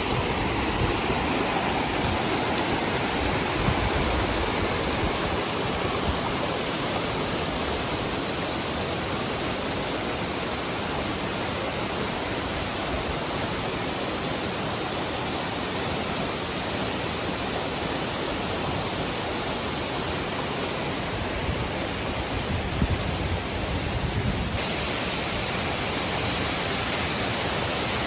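Mantayupan Falls: a steady, even rush of falling water.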